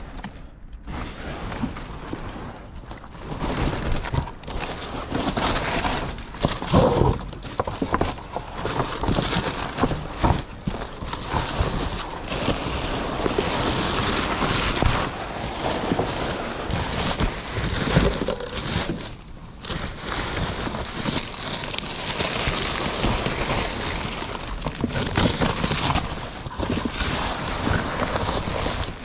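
Cardboard boxes, plastic sheeting and fabric items rustling, crinkling and scraping as they are rummaged through by hand, with irregular knocks as things are shifted.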